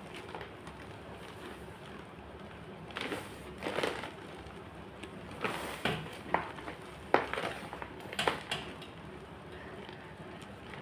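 White gym chalk being crushed: several short crunching bursts, with a sharp snap about seven seconds in and quieter stretches between.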